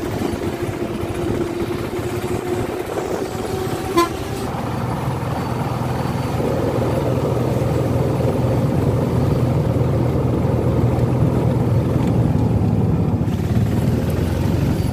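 Auto-rickshaw engine running while under way, with road noise, growing a little louder after about five seconds. A short horn toot comes about four seconds in.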